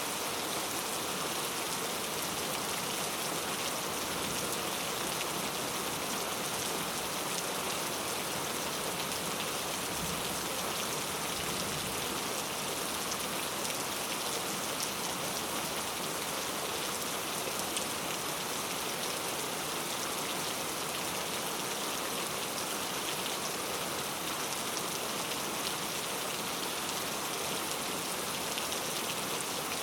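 Steady rain falling, an even hiss with the patter of individual drops hitting a surface.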